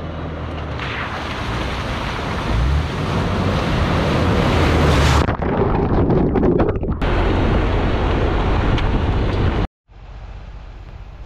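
Loud rushing wind noise buffeting the microphone, changing abruptly a couple of times as clips cut, with a brief dropout near the end.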